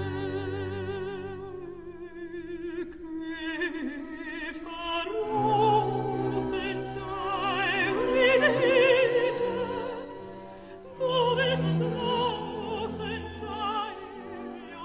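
Classical music: operatic singing with a wide vibrato over sustained orchestral accompaniment, swelling and fading, with a sudden louder entry about eleven seconds in.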